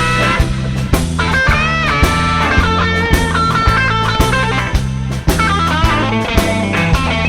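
Blues song in an instrumental break: an electric guitar plays a lead with bent notes over bass and a steady drum beat.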